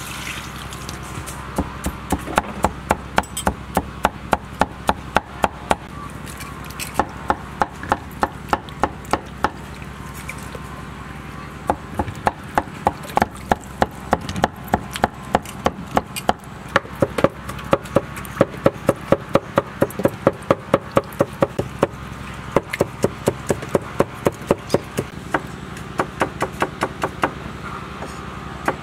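Cleaver chopping on a thick round wooden chopping block, mincing fish roe into ground pork. The strikes are steady and quick, about three a second, coming in runs with short pauses between them.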